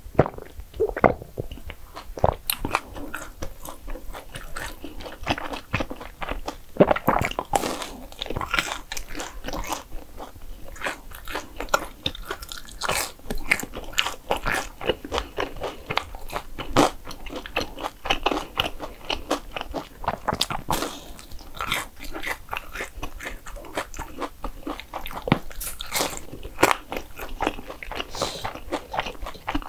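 Close-miked eating sounds: a person biting and chewing desserts, with frequent irregular crunchy clicks.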